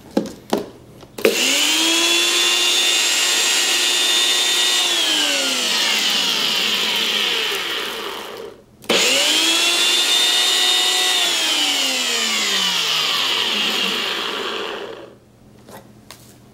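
NutriBullet personal blender grinding dried Carolina Reaper peppers into powder. A few clicks as the cup is pressed down, then two loud runs of the motor about six to seven seconds each with a short break between. Each run spins up in a quick rising whine and winds down in a slow falling whine.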